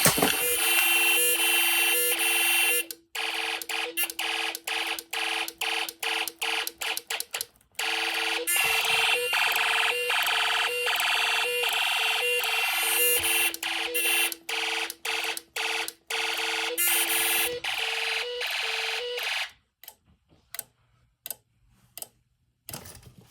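Home-made Snap Circuits fire alarm sounding: an electronic oscillator tone pulsing rapidly, about three beeps a second. It cuts out about three-quarters of the way through, and a few clicks follow.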